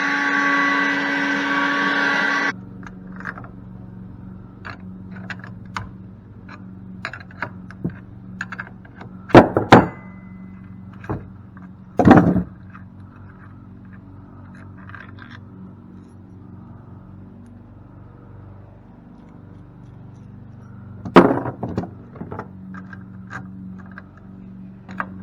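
A motor-driven tool runs loudly and stops abruptly about two and a half seconds in. Then come scattered clicks and scraping of tools on the cast-aluminium pump, with three loud metal clanks, over a low steady hum.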